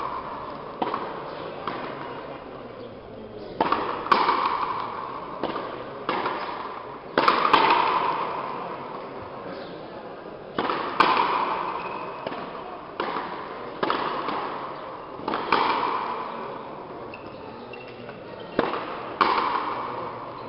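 Frontenis rally: the rubber ball struck by racquets and hitting the front wall, sharp hits about every second, often in quick pairs, each followed by a long echo of the large hall.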